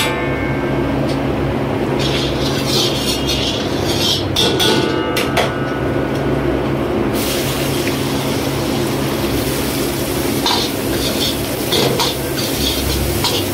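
A metal ladle scraping and clanking against a large iron wok as hot oil is swirled in it, over a steady low hum. About seven seconds in, a loud sizzling hiss starts suddenly and goes on, with more ladle clanks: ingredients frying in the hot oil.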